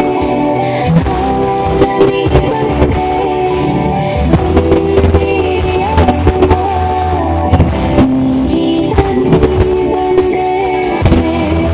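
Loud music for a stage dance performance, with long held notes over a beat of frequent percussive strikes.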